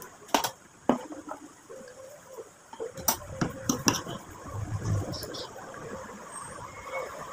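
Metal fork and spoon clinking against a plate while eating, a few sharp clinks near the start and a quick cluster of them about three to four seconds in.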